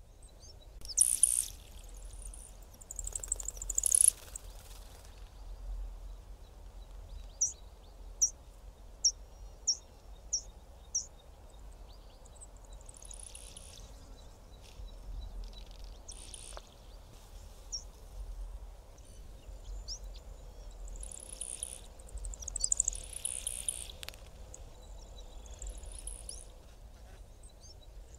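Male yellow bishop giving its display calls: high, insect-like sizzling bursts of a second or two, repeated through the clip. Between about seven and eleven seconds in it gives a run of six short, soft high notes, evenly spaced. A low steady rumble lies underneath.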